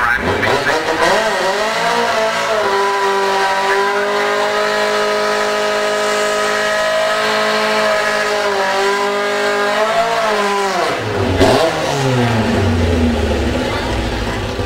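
Drag-racing VW Beetle doing a burnout: the engine revs up and is held at high, steady revs while the rear tyres spin, then drops back to a low idle about eleven seconds in.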